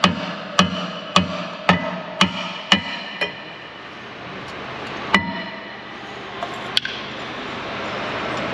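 A hammer striking a car's rear brake disc to knock the seized disc off the hub. About seven ringing blows come at roughly two a second over the first three seconds, then two more single blows about five and seven seconds in.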